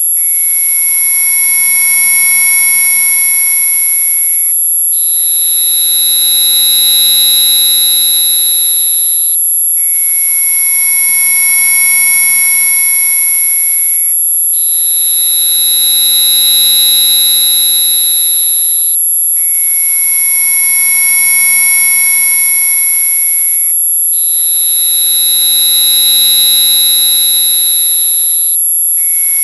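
Synthesized mosquito-repellent audio: a loud, piercing high-pitched tone layered with several other steady electronic tones. The mix of tones switches about every five seconds, with a brief dropout at each change.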